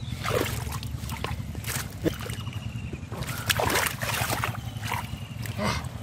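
Hands and arms sloshing and squelching in mud and shallow water among water hyacinth while groping for catfish, in short irregular splashes over a steady low rumble.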